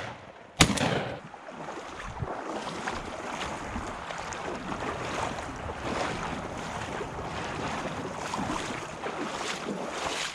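A single shotgun blast about half a second in, followed by a steady rushing noise.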